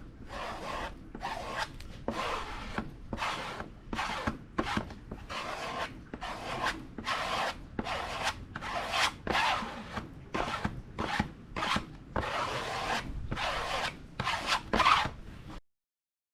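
Hand sanding or filing: a long run of short back-and-forth rasping strokes, roughly one to two a second, that cuts off suddenly near the end.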